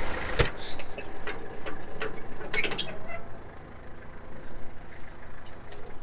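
Tractor engine idling under a sharp knock about half a second in and a few metallic clinks about two and a half seconds in, from working the round baler's pickup latch and chain to lower the pickup.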